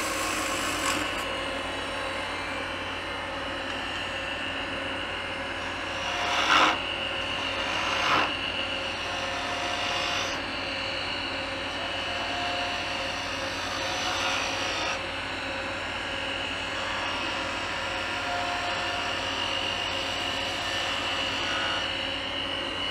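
Wood lathe spinning a maple blank while a hand-held turning tool cuts into it: a steady rasp of wood being shaved over the machine's hum. Two brief louder scrapes come about six and eight seconds in.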